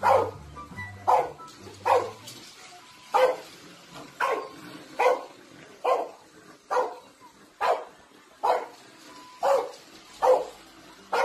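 A dog barking over and over at a steady pace, about one sharp bark a second.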